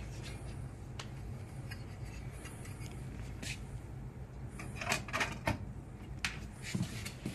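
A steady low hum with sharp mechanical clicks and clatter, a quick cluster about five seconds in and a few more near the end.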